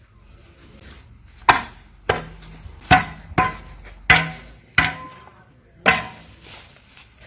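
A series of seven sharp blows at uneven spacing over about five seconds, some followed by a brief ringing tone.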